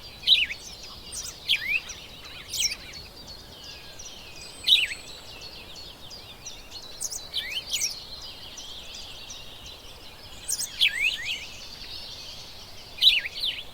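Birds chirping: loud, sharp, quickly falling chirps every one to three seconds over a steady background chorus of many small birds calling.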